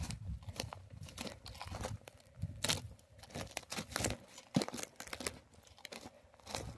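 Footsteps crunching and scuffing irregularly over rough ground, with rustling.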